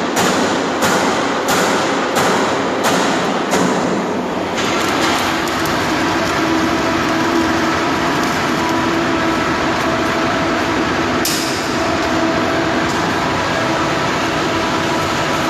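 Metal striking steel inside a large steel tank, about one and a half blows a second, stopping after about four seconds. A steady, dense noise with a faint hum runs on, with one more single strike later.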